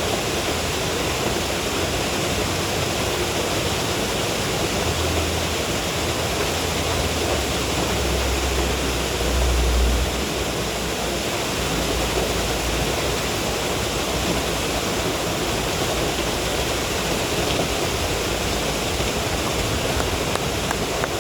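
Steady rush of creek water pouring over a spillway, with a brief low rumble about eight to ten seconds in.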